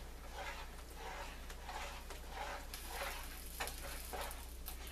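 A utensil stirring milk gravy in a metal skillet: soft scraping, swishing strokes, about two a second.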